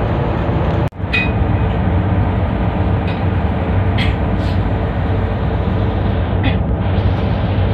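Boat engine running with a steady low drone, heard from on board, with a brief sudden drop-out about a second in.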